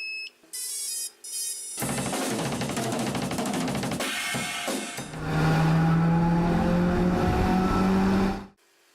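Short intro music: a few electronic tones, then drums and cymbals, then held notes, cutting off suddenly near the end.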